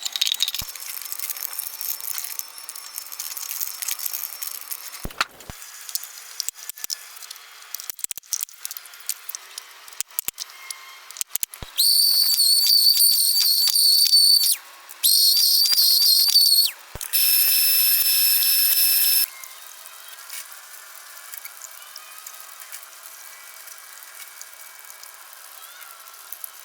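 Scattered clicks and crackles, then a loud, high wavering whistle in two stretches about halfway through, followed by a couple of seconds of hiss. After that only faint crackle remains.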